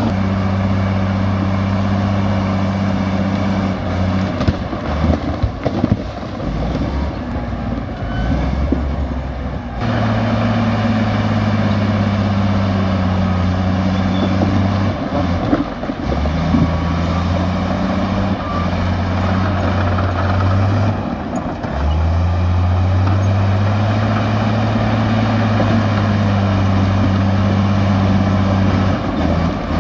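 Komatsu crawler bulldozer's diesel engine working under load as it pushes rock and soil. The engine note drops and rises several times as the load changes, with a stretch of irregular knocks and rattles between about four and ten seconds in.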